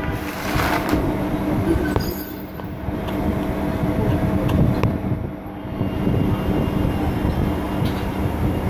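A steady low mechanical rumble with a hum of several steady tones and a few faint clicks.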